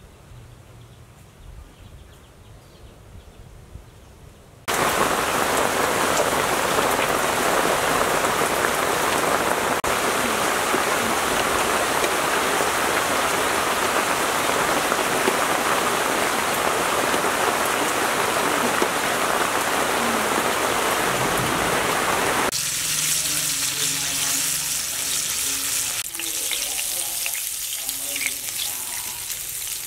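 Steady heavy rain falling on leaves, starting suddenly about five seconds in. About twenty-two seconds in it cuts to hot oil sizzling as food deep-fries.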